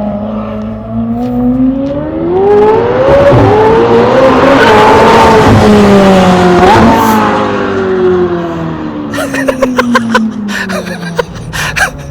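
McLaren 720S twin-turbo V8 with catless downpipes and a straight-pipe exhaust, accelerating hard with its pitch climbing for several seconds. It then eases off with a falling pitch and a string of crackles and pops from the exhaust near the end.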